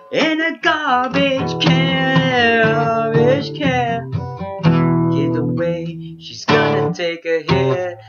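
Acoustic guitar being strummed while a man sings over it, with long held notes about two to three seconds in.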